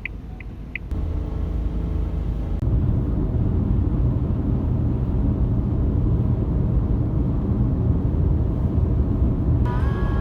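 A moving vehicle's steady low rumble. It comes in about a second in and grows louder again a couple of seconds later. Near the end, two steady higher tones begin together over it.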